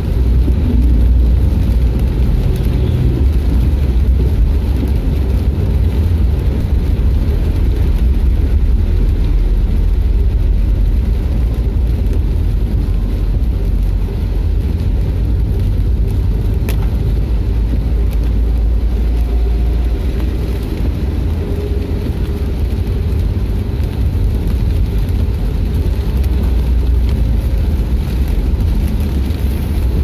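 Steady low rumble of a vehicle driving on a rain-soaked road, heard from inside the cab, with tyre hiss from the wet surface.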